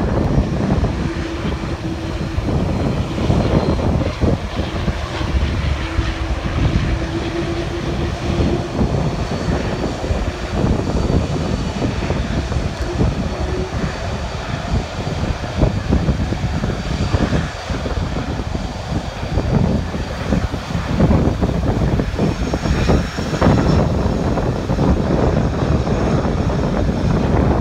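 Airbus A330 jet engines running at low power as the airliner taxis onto the runway, a steady hum and a faint high whine over a gusty rumble of wind on the microphone.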